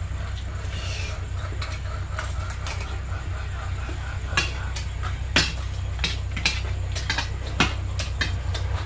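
Eating at a dish: a utensil clicking and scraping against the bowl, with sharp clicks coming more often from about four seconds in, over a steady low hum.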